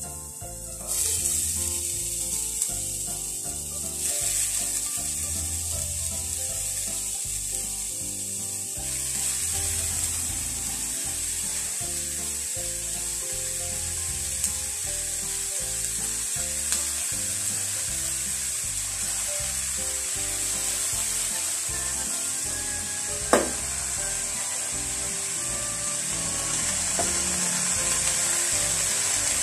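Grated green papaya sizzling in a hot pot over sautéed onion, garlic and ginger; the hiss steps up about a second in and again around four and nine seconds, then holds steady. A single sharp knock sounds near the end.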